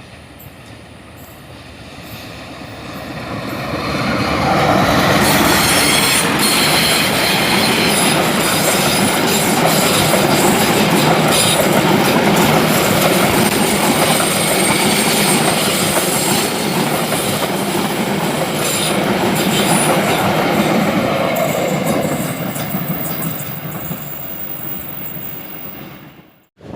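Passenger train passing close by: it builds up over about four seconds, then wheels rumble and clack over the rail joints for a long stretch before the sound fades away near the end.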